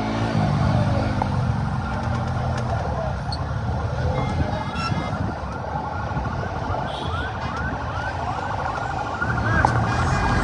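Vehicle siren yelping in short, repeated rising sweeps, about two a second, from about halfway in, over a steady din of street traffic and crowd.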